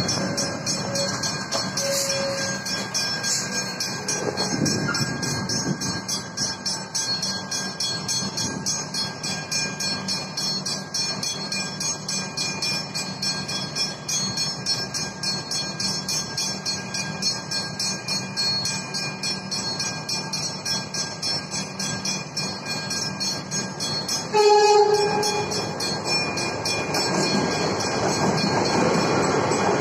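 Level crossing warning bells, an electronic bell and a mechanical bell ringing together in a steady, evenly repeating pattern. About 24 seconds in, a suburban electric train sounds a short horn blast, and near the end the train rolls in, growing louder.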